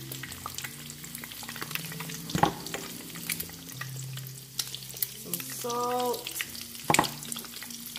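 Eggs and onion rings frying in olive oil in a nonstick skillet: a steady crackle of sizzling fat. Two sharp knocks stand out, one about two and a half seconds in and one near the end.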